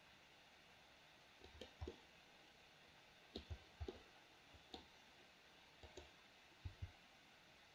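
Computer mouse buttons and keyboard keys clicking, about a dozen faint sharp clicks, mostly in quick pairs, over a faint room hiss.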